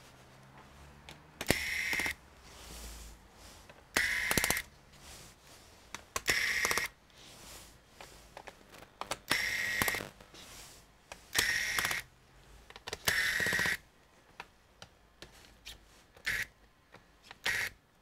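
Small electric screwdriver running in repeated short bursts, each half a second to a second, six times and then twice more briefly near the end, backing out the screws of a laptop's bottom cover, with light clicks between.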